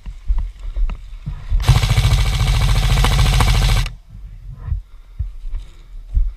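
Airsoft electric gun firing one long full-auto burst of rapid, even ticks lasting about two seconds, cutting off sharply; scattered knocks and rustling of movement before and after.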